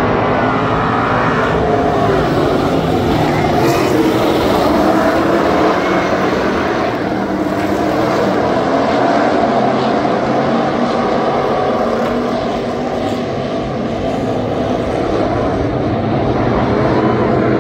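A pack of USRA stock cars racing on a dirt oval, their V8 engines running together as one loud, steady drone of many overlapping engine notes that swell and fade as the cars go round, dipping slightly past the middle.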